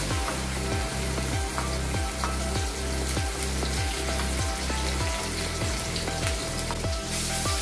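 Ground masala paste sizzling and spitting as it is scraped from a bowl into hot oil in a frying pan. Background music plays underneath.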